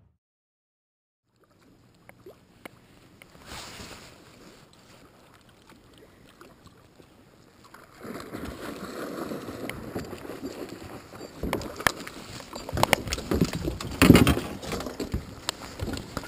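Water sloshing against a small aluminum fishing boat with wind on the microphone, building to splashing and sharp knocks against the hull as a muskie hits the lure right beside the boat. The loudest splash comes about two seconds before the end.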